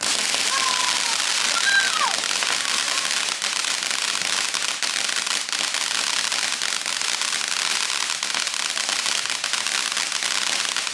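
Consumer ground firework, such as a fountain, spraying and crackling: a dense, steady rush of fast crackles and hiss that starts and stops abruptly. A couple of short falling whistle-like tones come near the start.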